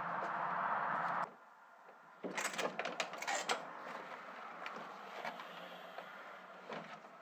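A kitchen blender's motor runs with a steady whir, then cuts off abruptly about a second in. After a short quiet comes a quick cluster of clicks and knocks from a screen door being handled, then a few faint taps.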